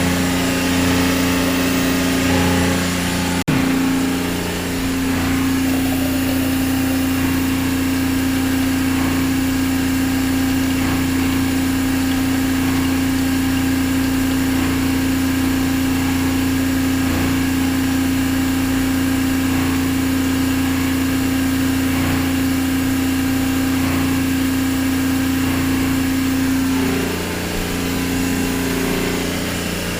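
Reverse-osmosis water maker running under pressure, a steady mechanical hum with a strong low tone from its pump and motor, making water. A short click breaks it about three and a half seconds in, and the pitch of the hum shifts near the end.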